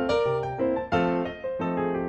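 Background piano music, single notes and chords struck in succession.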